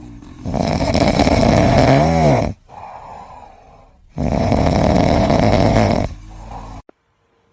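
Loud snoring from a sleeping pet: two long, noisy snores of about two seconds each, with quieter breaths between them. A short whistle rises and falls at the end of the first snore, and the sound cuts off abruptly near the end.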